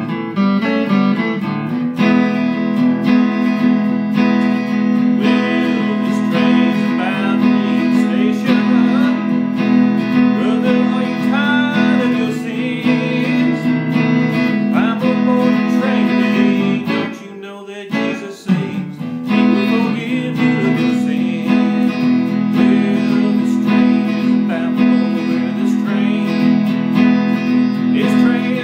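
Solid-body electric guitar played in a gospel-blues style, picked notes and strums, with a man singing over it. The playing drops out briefly about two-thirds of the way through, then carries on.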